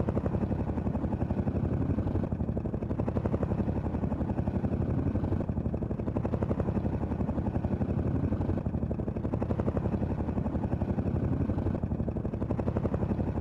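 Helicopter running steadily, its rotor blades making a rapid, even chop over the engine's drone.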